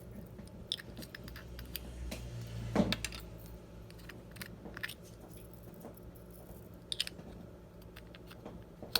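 Scattered small clicks, taps and crackles of little plastic glitter containers being handled and opened while glitter is added to clear slime, with one louder click about three seconds in.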